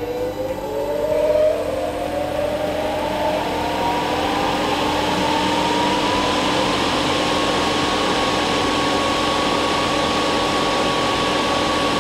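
Centrifugal fan's electric motor being soft-started by a variable speed drive: a whine rises smoothly in pitch for about seven seconds, then holds steady as the fan reaches speed, with a steady lower hum and rushing air growing louder beneath it. The start is a controlled ramp, with no starting-current surge or mechanical shock.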